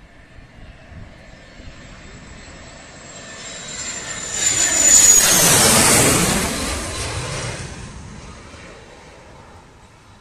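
Fighter jet on landing approach passing low overhead. The jet engine's noise builds to a peak about five seconds in, a high whine drops sharply in pitch as it goes by, and the noise then fades away.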